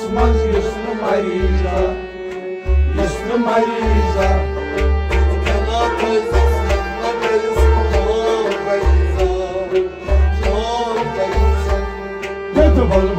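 A man singing a Kashmiri Sufi song over a harmonium's held chords, with a hand drum keeping a steady beat.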